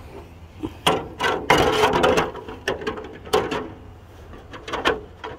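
A clear polycarbonate RC short-course truck body shell being handled and pressed down onto the chassis: a run of irregular plastic clatters and knocks, thickest about one to two and a half seconds in, with a few more knocks near the middle and near the end.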